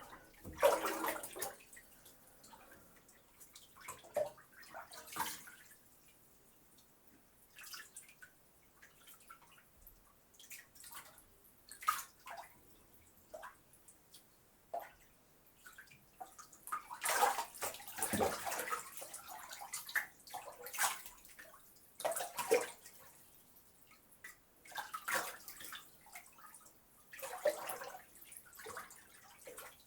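Water sloshing and splashing in a bathtub as a bather moves in it, in irregular bursts every second or two with drips in between, busiest about halfway through.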